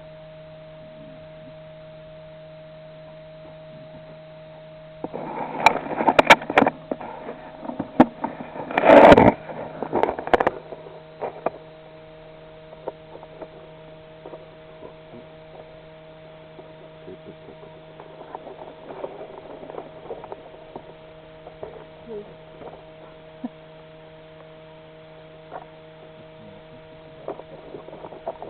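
A steady electrical hum of several even tones. A run of loud crackles and knocks comes about five to eleven seconds in.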